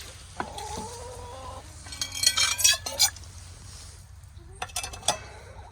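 Chickens calling: a steady, drawn-out call, then a louder burst of squawking about two seconds in, with a few short knocks near the end.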